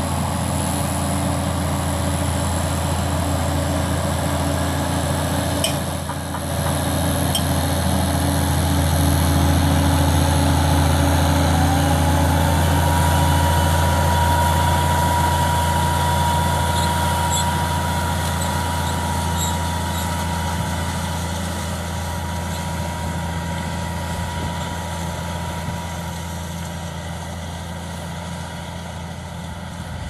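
Tractor engine running steadily as it works a Vogel & Noot Arterra with a ProfiDrill 300 seed drill. About twelve seconds in, a whine rises in pitch and then holds steady, and the overall sound fades a little toward the end.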